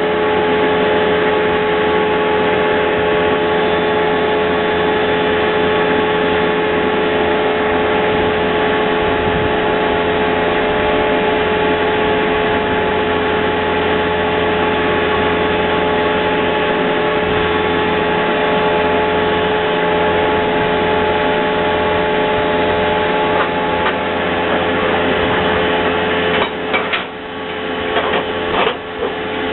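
Gasifier generator set running steadily under load: a Toyota 22R four-cylinder engine on wood gas drives a 25 hp three-phase induction motor as a generator, with a steady whine over the engine note. A few knocks and clatter come near the end.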